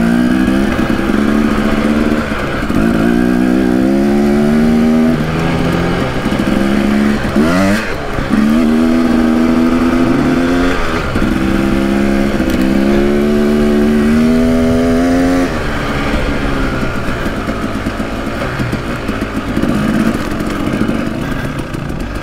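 Husqvarna dirt bike engine under way off-road, its note climbing and dropping back several times as it is throttled up and shifted, with one quick blip of revs partway through. Later it drops to a lower, quieter steady running note as the throttle is eased off.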